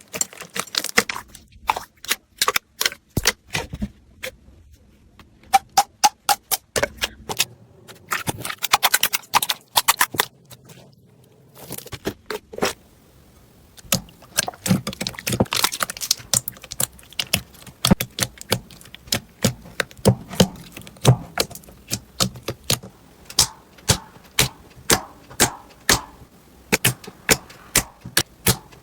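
Slime being squeezed and pressed by hand, making a long series of sharp pops and clicks in quick runs with short pauses.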